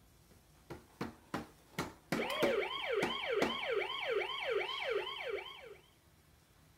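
Electronic siren of a Paw Patrol ride-along fire truck toy, set off by pressing the light-bar button: four sharp clicks, then a fast repeating wail of about three sweeps a second for nearly four seconds before it stops.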